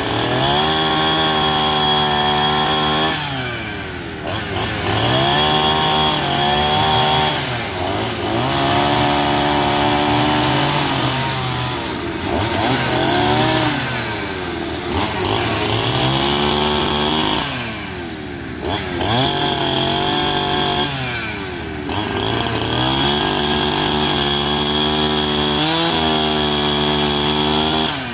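Chainsaw cutting into wooden log pieces, its engine revved up and held for cuts of two to three seconds, then dropping back between them, about seven times over.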